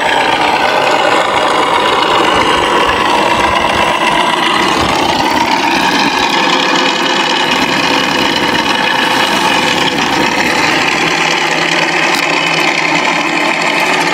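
ESS-Air V2.0 sound unit playing a simulated piston aircraft-engine sound through an exciter stuck firmly to an RC P-47's foam airframe, which acts as the sounding board. It runs steadily, with a slight shift in pitch about four to five seconds in.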